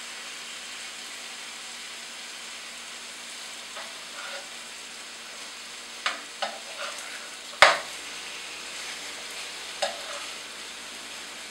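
Diced chicken sizzling steadily in olive oil in a hot nonstick skillet, with a few sharp clacks of a metal utensil against the pan as the pieces are turned; the loudest clack comes about two-thirds of the way through.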